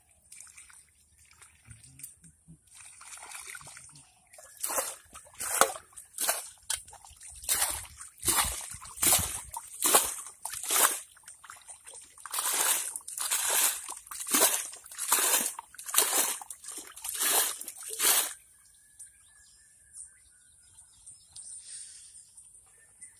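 Muddy water being scooped with a metal bowl and thrown out of a shallow pool: about twenty splashes, one every second or less, starting a few seconds in and stopping some five seconds before the end. The water is being bailed out to drain the pool and expose the fish.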